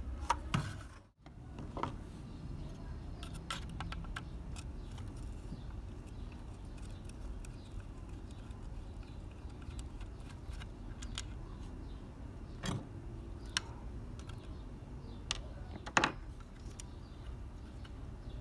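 Scattered light clicks and taps of small parts and tools being handled, over a steady low hum, with the sharpest taps near the end.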